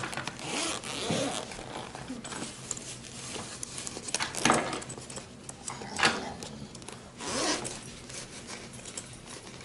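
Zipper on a soft tool bag being pulled open in several separate rasping pulls, with rustling handling of the bag between them.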